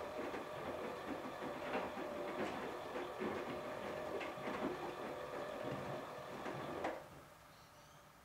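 Electrolux EWF9042R7WB front-loading washing machine running with a light load: a steady motor hum with irregular knocks and clicks from the drum, then the drum stops about seven seconds in and the sound drops away sharply.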